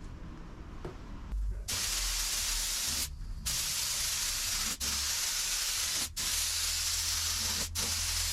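Pressurised spray hissing in long bursts, cut off briefly four times between bursts.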